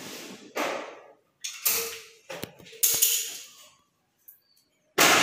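Hand caulking gun being worked while sealant is applied to an aluminum window frame: a series of sharp clacks from the trigger and plunger rod, about five over a few seconds.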